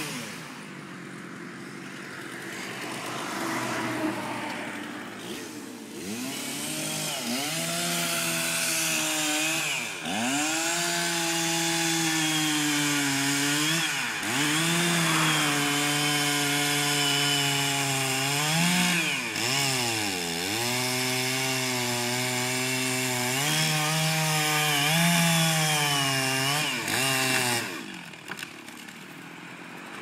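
Chainsaw cutting through a large white oak trunk: the two-stroke engine bogs down and revs back up again and again as the bar works through the cut, then drops away about two seconds before the end.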